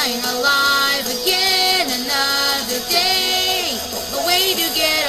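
A voice singing a pop-rock song over its backing music, with long held notes that slide in pitch.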